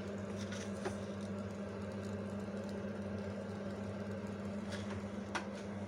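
Steady low hum with a light hiss in a kitchen where a gas burner is lit under a pan of heating mustard oil, broken only by a couple of faint clicks.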